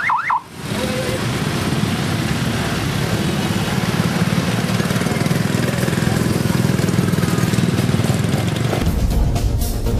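Street traffic noise: motorcycle and car engines running amid a crowd, steady throughout. A brief warbling siren chirp sounds right at the start, and a heavier low rumble comes in near the end.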